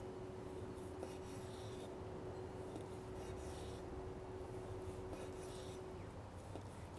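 Chef's knife slicing through a cooked tri-tip roast on a wooden cutting board: faint, irregular rasping strokes of the blade through the meat.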